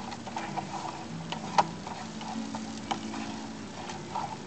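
Wooden spoon stirring rice and onions in a skillet, giving scattered light clicks and scrapes against the pan, the sharpest about a second and a half in.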